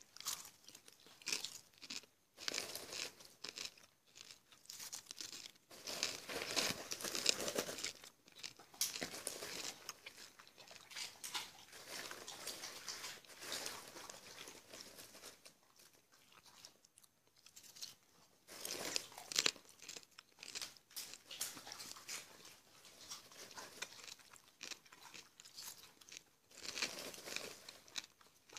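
Popcorn being crunched and chewed, in irregular bursts with short pauses.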